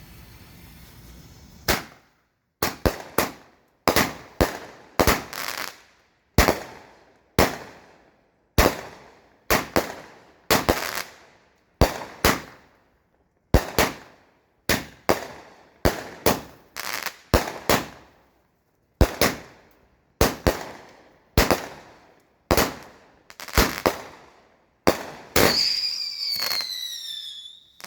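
A 25-shot, 200-gram consumer firework cake firing: after a steady hiss for the first two seconds, sharp bangs follow one every half second to a second, each with a fading tail. Near the end several whistles glide down in pitch over the last shots.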